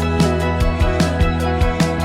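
Background music with a steady beat, plucked notes over held chords.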